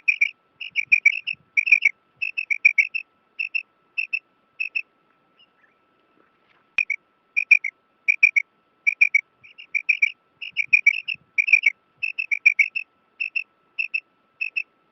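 Female quail calling: short, high chirping notes in quick pairs and triplets, the groups repeating a little under twice a second, with a pause of about two seconds a third of the way in. A faint steady high tone runs underneath.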